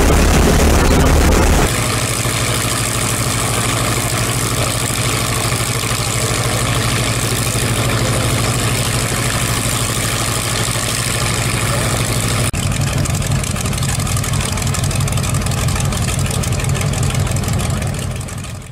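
Shvetsov M-82 (ASh-82) 14-cylinder radial aircraft engine running steadily on the ground with its propeller turning. It is deeper and louder for the first two seconds, then changes abruptly to an even, steady idle, and fades out near the end.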